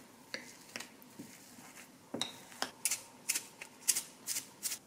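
Metal potato masher knocking and clicking against a glass bowl while mashing boiled potatoes. From about three seconds in, a salt grinder is twisted over the bowl: a run of about six short, gritty scrapes roughly half a second apart.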